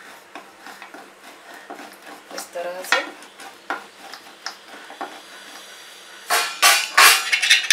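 Wooden rolling pin pressing and tapping the edges of a hot sesame chikki slab on a steel plate, a string of light knocks and scrapes. Louder clattering of utensils near the end.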